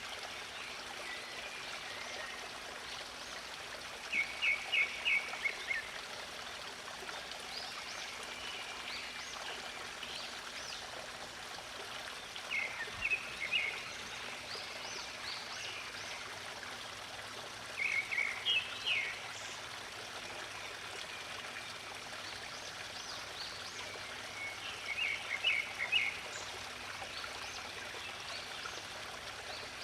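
Water flowing steadily, with a songbird singing a short, rapid phrase of chirping notes four times, every six seconds or so.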